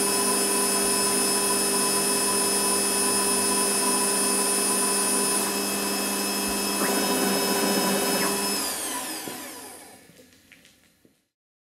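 Optimum Opti turn TU 2004V mini lathe running, a steady whine with several tones from its spindle drive. About two-thirds of the way in, the spindle spins down: the whine falls in pitch and fades out, with a few faint clicks as it stops.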